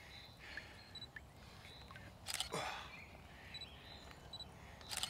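Quiet lakeside ambience with faint, scattered bird chirps, broken by a short rustling burst about two seconds in and a brief click near the end.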